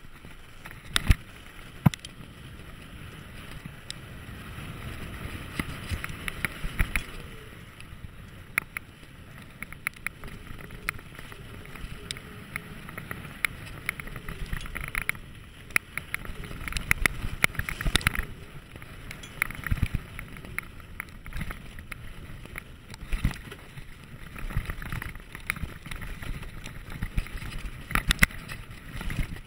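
Dartmoor Hornet mountain bike riding fast down a dry dirt trail: a continuous rolling rumble from the tyres on dirt and dry leaves, broken by many sharp rattles and knocks as the bike hits bumps, the loudest about a second and two seconds in.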